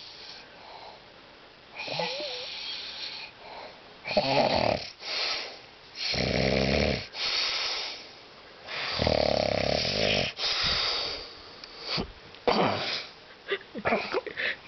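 A man snoring: repeated snores with a low buzz, each followed by an airy out-breath, every few seconds. A few short sputtering rasps come near the end.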